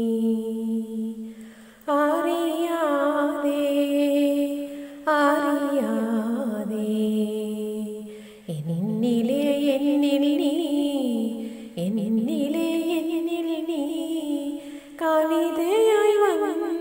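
A woman singing a slow Malayalam film melody solo, with wavering held notes, in phrases about three seconds long that each start abruptly.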